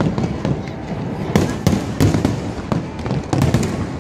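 Fireworks display going off: sharp bangs at irregular intervals over a steady low rumble of bursts.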